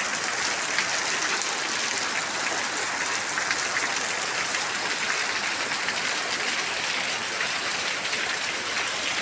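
Heavy rain falling steadily, a dense even hiss of drops on the ground.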